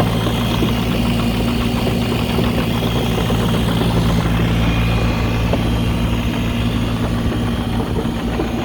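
Caterpillar 302.7 mini excavator's Yanmar diesel engine running steadily.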